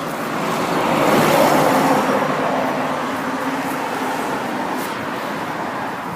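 A car passing on the road: tyre and engine noise that swells to its loudest about a second or two in, then slowly fades away.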